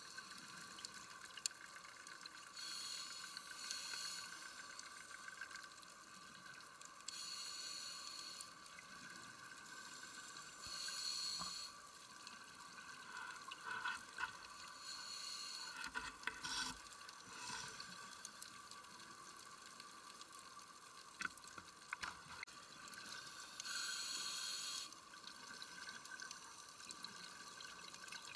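Scuba diver's exhaled bubbles from a regulator underwater: hissing, bubbling bursts every few seconds, each a second or two long. Under them runs a steady high hum, with a few faint clicks about halfway through.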